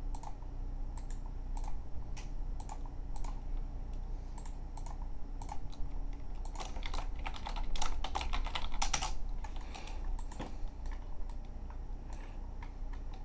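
Computer keyboard keys clicking in irregular taps, with a quick run of keystrokes about seven seconds in, over a low steady hum.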